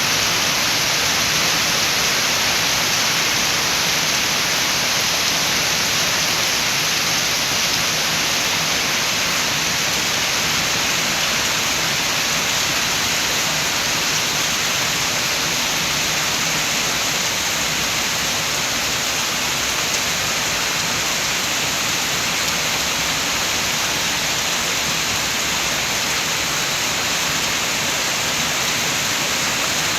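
Steady heavy rain falling, a dense even hiss with no separate drops or gusts standing out.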